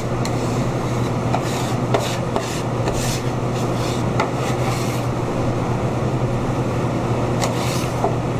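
A butcher's knife scraping and tapping on a wooden butcher block, in short irregular strokes, over a steady low hum.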